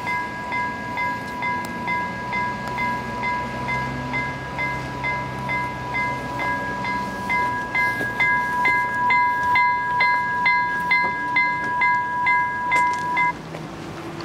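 Railway level-crossing warning bell ringing rapidly, about three strikes a second over a steady ringing tone. It cuts off suddenly about a second before the end.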